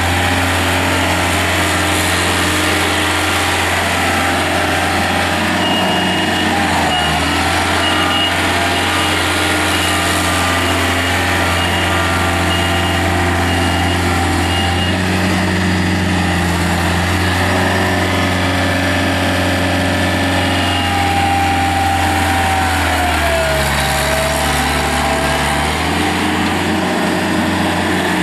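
Yanmar diesel engine of a John Deere 110 tractor loader backhoe running steadily. Its pitch shifts a couple of times, notably about two-thirds of the way in, and a faint whine rises and falls over it.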